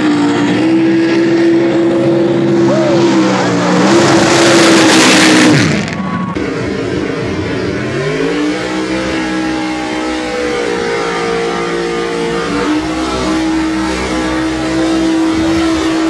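Lifted mud truck's engine held at high revs as it churns through a mud pit, with a loud rushing noise that stops suddenly about six seconds in. The engine then revs up again and holds a steady high pitch.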